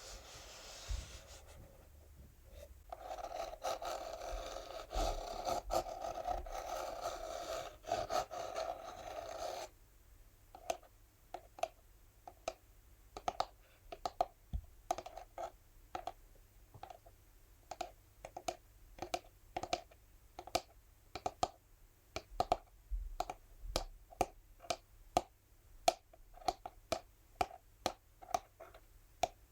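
Fingernails scratching steadily across an empty textured cardboard box, then switching about ten seconds in to tapping on it with the nails, a few taps a second, each with a short ring from the box.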